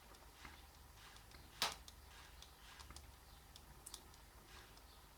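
Faint, scattered clicks and taps of a finger on a tablet's side-mounted fingerprint sensor during fingerprint enrolment, with one sharper click about a second and a half in.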